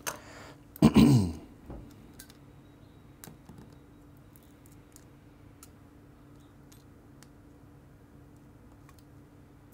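A breath and a brief wordless 'mm' from a man's voice about a second in, then faint scattered clicks and taps of fingers handling the small plastic and metal parts of a partly dismantled digital camera, over a faint steady low hum.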